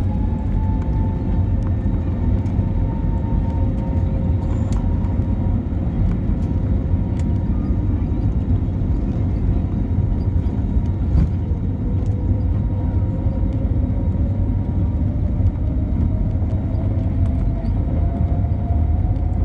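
Cabin noise inside an Airbus A320 as it taxis: a steady low rumble from the jet engines and airframe, with a faint whine that rises in pitch over the second half.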